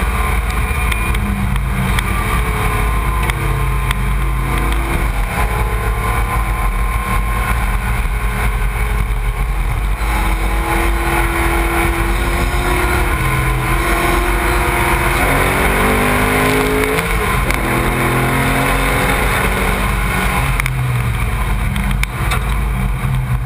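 Onboard sound of the CorteX Xecution Ford Mustang race car's engine under hard acceleration on track, buried in heavy wind and road rumble. The engine note climbs and falls with gear changes, with a sharp drop in pitch about two-thirds of the way through.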